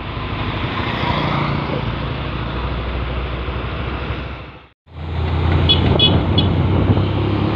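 Heavy truck engine running under steady road and traffic noise. The sound breaks off for a split second a little after halfway, then the engine hum comes back stronger and lower.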